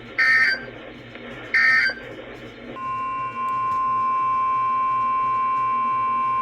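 Emergency Alert System broadcast on NOAA Weather Radio. First come two short screeching SAME header data bursts, then, about three seconds in, the steady 1050 Hz warning alarm tone, which signals that a new warning is about to be read.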